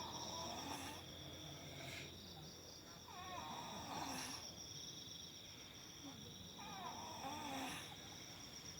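A sleeping person snoring, three rasping snores about three and a half seconds apart, each with a wavering pitch. A steady high-pitched insect trill, typical of crickets at night, runs underneath.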